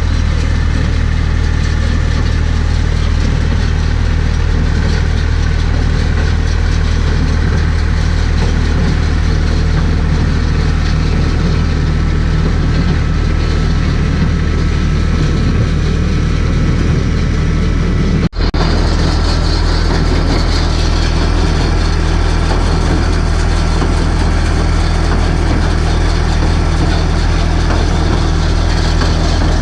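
Massey Ferguson 254S tractor's diesel engine running steadily under load, pulling a Welger WSA 350 baler through the hay. The sound is a constant low hum that breaks off for an instant about two-thirds of the way through.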